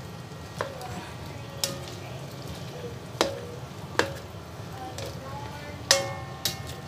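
Spatula clinking and scraping against a stainless steel wok while broccoli and carrots are stir-fried: about six sharp clinks at uneven intervals, each with a brief metallic ring, over a steady low sizzle.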